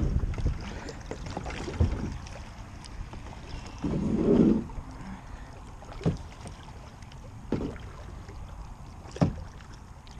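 Blue plastic kayak knocking and scraping as the paddler shifts in the seat and pushes off from the rocky shore, with a louder rub about four seconds in. In the second half come sharp knocks about every second and a half as the paddle comes into use.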